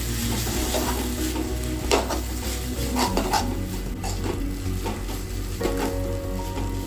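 Pork frying in a pan, sizzling steadily as it is stirred, with a few sharp scrapes of a spatula against the pan.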